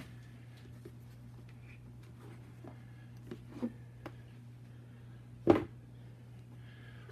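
Low steady room hum, with a few small clicks and knocks from hands and camera handling and one louder knock about five and a half seconds in.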